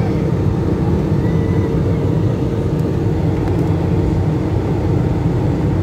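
Steady airliner cabin noise in flight: a low, even rumble of engines and airflow with a faint constant hum over it.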